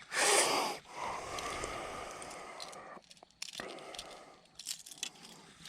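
Handling noise from fishing tackle being fixed by hand: a loud rustle in the first second, then fainter scraping and a few small clicks.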